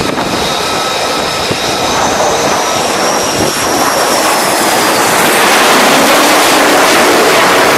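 Jet roar of an F/A-18 fighter on approach to an aircraft carrier deck and landing. The roar grows somewhat louder toward the later part, with a thin high engine whine running through it.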